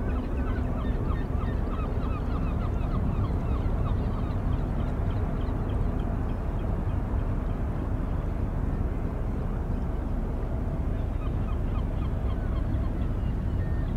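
A flock of waterbirds calling in quick, repeated goose-like honks, thinning out in the middle and picking up again near the end, over a steady low rumble.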